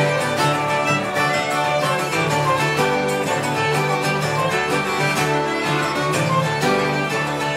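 Irish traditional jigs played live on uilleann pipes, fiddle, bouzouki and guitar: fiddle and pipes carry a quick running melody over a steady drone, with the bouzouki and guitar strumming the rhythm.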